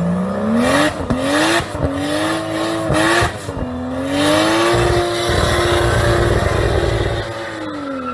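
Car engine accelerating hard, its pitch climbing and dropping back sharply a few times, then holding steady and falling away near the end. The sound cuts off abruptly.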